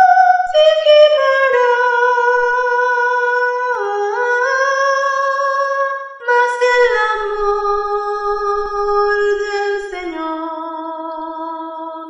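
A solo soprano voice sings the top line of a choir hymn alone, holding long notes in a slow phrase. The phrase steps downward and reaches its lowest note about ten seconds in.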